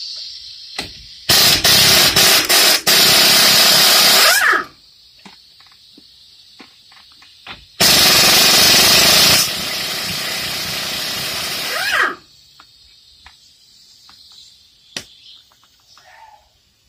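Pneumatic wrench on an air hose running off the 21 mm strut tower nuts: two long bursts of the air tool, the first stopping and starting several times, each ending as the tool winds down. The second burst runs quieter for its last couple of seconds.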